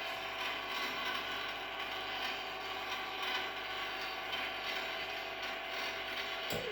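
AR-500 antenna rotator's motor and reduction gears running steadily as it turns the rotor, then cutting off abruptly near the end as it reaches its 360-degree end position.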